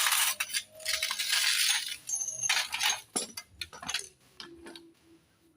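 Metal parts clinking and rattling as they are handled, a dense run of sharp clinks for about four seconds that then dies away.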